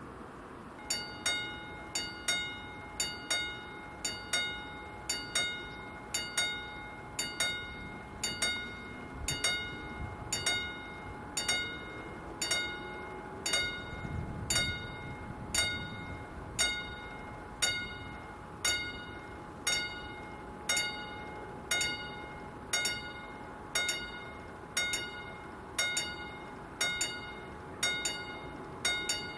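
Railway level crossing warning bell starting up about a second in and striking at a steady, even beat, each strike ringing with several pitched tones over a faint steady hum: the crossing has been activated for an approaching train. A brief low rumble comes near the middle.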